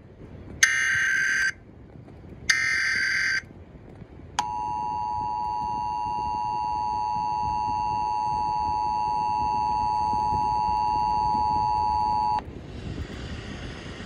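Emergency Alert System test tones played through a tablet speaker: two short SAME header data bursts, about a second each, then the steady two-tone EAS attention signal sounding for about eight seconds from about four seconds in and cutting off abruptly.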